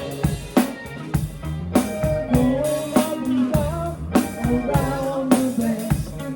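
A band playing a song: drum kit keeping a steady beat under guitar and a singing voice.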